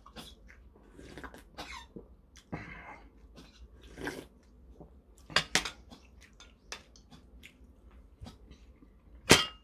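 A person drinking soup straight from a bowl held to the mouth, with slurping and swallowing sounds, then sipping from a metal spoon. A sharp, ringing clink of the spoon against the bowl near the end is the loudest sound.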